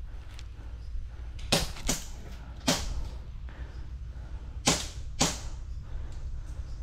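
Five sharp airsoft gun shots, each a single snap, in an uneven rhythm: two close together about a second and a half in, a lone one near three seconds, then two more close together near five seconds.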